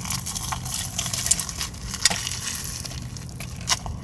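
Close-up biting into and chewing a fried egg roll stuffed with a mozzarella stick: scattered small crackles and clicks mixed with wet mouth sounds.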